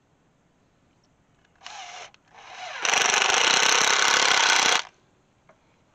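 Cordless drill driving a screw through a plastic electric-fence extender insulator into a wooden fence post: a short burst about a second and a half in, then a steady run of about two seconds that stops suddenly about five seconds in.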